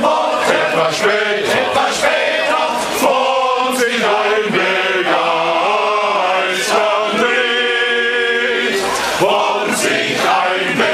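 Men's choir singing unaccompanied in several-part harmony, with a long held chord about seven seconds in.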